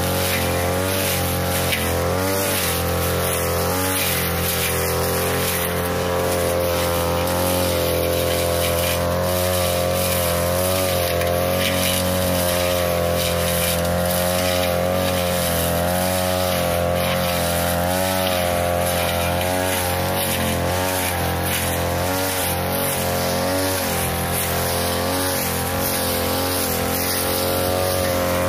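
42cc backpack brush cutter running at high speed while its blade cuts through thick grass. The engine's pitch wavers slightly up and down as the load on the blade changes.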